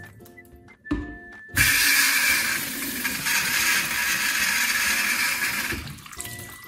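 Sink-mounted cup washer (glass rinser) spraying water up into an upturned bottle pressed onto it: a short knock, then a loud, even hiss lasting about four seconds that stops when the bottle is lifted. Soft background music plays underneath.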